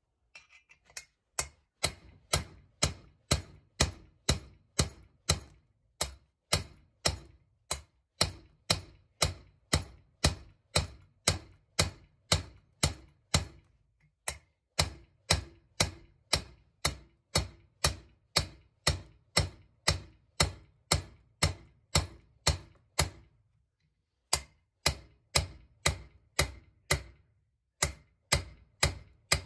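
A hammer striking a steel punch in a steady rhythm, about two blows a second, each blow a sharp metallic crack with a short ring, broken by a few brief pauses.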